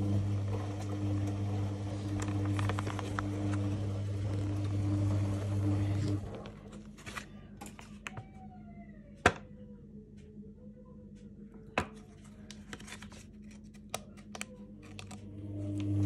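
Plastic blister pack of a Finish dishwasher freshener being handled and bent, with crinkling and several sharp clicks in the second half. A steady low hum runs for about the first six seconds and cuts off suddenly.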